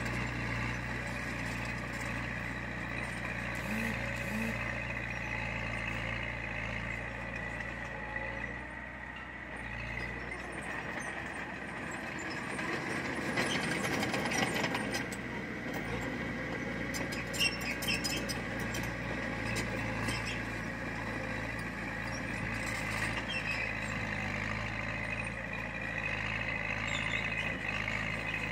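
Heavy diesel earthmoving machinery running steadily, with a constant low engine hum and a steady higher whine. It grows louder and rougher about halfway through, with a sharp click a few seconds later.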